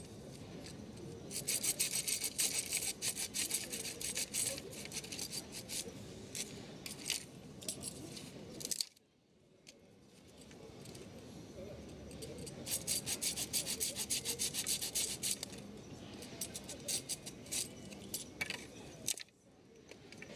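Small folding hand saw cutting through wood with quick rasping strokes, in two stretches with a short break about nine seconds in.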